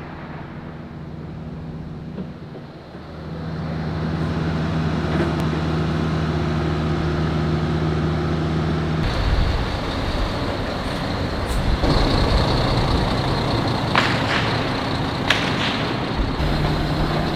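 Scania semi-truck's diesel engine running at a steady idle, then from about nine seconds louder and rougher as the rig manoeuvres, with a few short sharp hisses or clicks.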